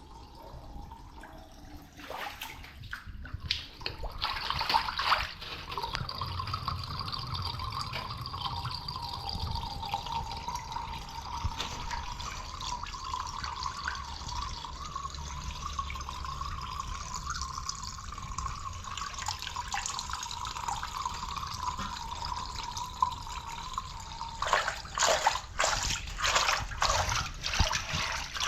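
Water running and trickling steadily through a rainwater drain, with a run of splashes and knocks in the last few seconds.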